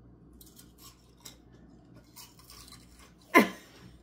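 Thin wasabi-flavoured chips being bitten and crunched, as short crisp crackles. About three and a half seconds in comes a brief vocal sound falling in pitch, louder than the crunching.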